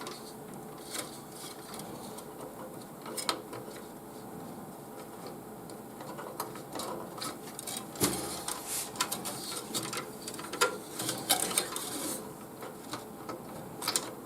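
Irregular small plastic clicks and taps of a fan cable and its connector being handled and fitted onto a motherboard fan header, few at first and busier in the second half, over a faint steady hum.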